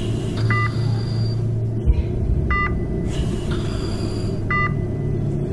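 Heart monitor beeping with the heartbeat: a short two-tone beep about every two seconds, over a steady low hum. A single dull thump about two seconds in.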